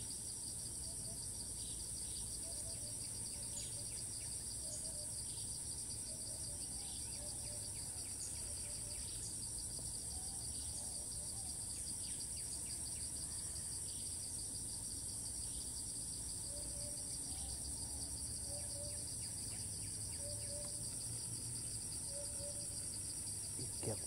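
Cicadas singing: a steady high-pitched buzz with a fast pulsing trill beneath it.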